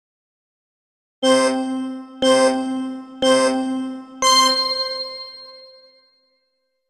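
Boxing timer's countdown alarm marking the end of a round: three bell-like dings one second apart, then a fourth that rings on and fades over about two seconds as the rest period begins.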